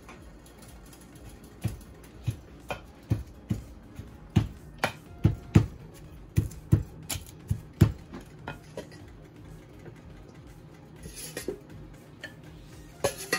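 Wooden pestle pounding boiled cassava with margarine in a wooden mortar: a run of thuds, two or three a second, for most of the first nine seconds, mashing the cassava for nilupak. Near the end a spoon scrapes and knocks against the mortar.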